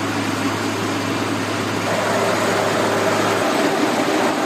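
Trencher running: a steady engine drone with a low hum under a noisy mechanical rush. A little over three seconds in, the low hum drops away.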